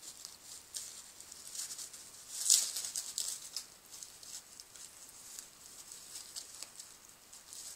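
Crumpled plastic bag crinkling and rustling as a puppy chews and paws at it, in irregular small crackles with one louder burst about two and a half seconds in.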